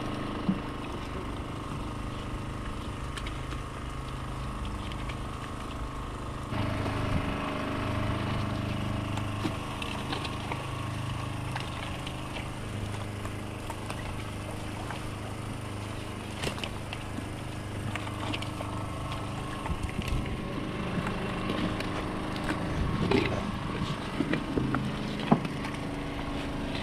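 Fishing boat's engine running steadily, getting a little louder about six and a half seconds in, with scattered knocks and water splashing as a purse-seine net full of mackerel is hauled aboard by hand.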